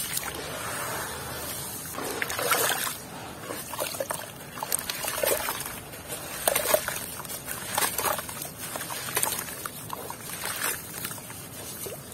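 Hands squeezing and crumbling a water-soaked gritty block in a plastic tub of muddy water: wet crumbling and sloshing, with crumbs and water dribbling back into the tub at irregular moments.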